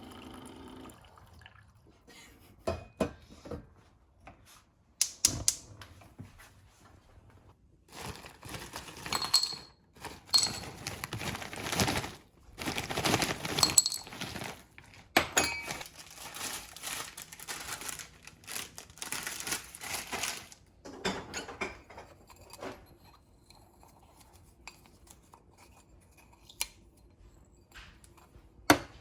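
Kitchen handling sounds: dishes and utensils clinking and knocking, with several noisy stretches of a second or two near the middle.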